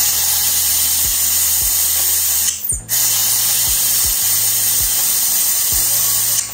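Loud steady spraying hiss that breaks off briefly about two and a half seconds in and then resumes, over background music with a soft steady beat.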